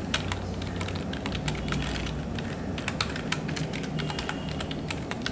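Typing on a computer keyboard: a quick, irregular run of key clicks, over a low steady hum.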